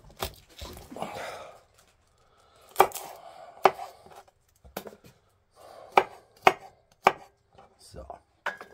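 Kitchen knife chopping vegetables on a cutting board: sharp, irregularly spaced chops, about seven in all, with some softer scraping between them.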